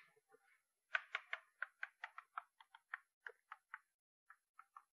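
Chalk tapping and scratching on a chalkboard as Chinese characters are written: a faint run of quick, irregular taps starting about a second in.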